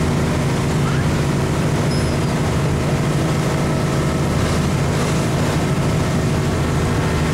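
A boat's engine running steadily under way, a constant low drone.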